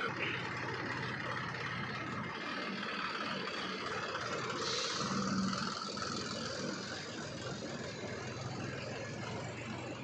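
Swaraj 744 XT tractor's diesel engine running steadily as the tractor pulls its loaded trolley of mud away.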